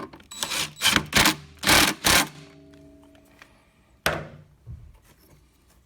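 Power tool driving the bolt of a new lawn mower idler pulley home in several short bursts, then a brief ringing tone that fades out, and one more short burst near the end.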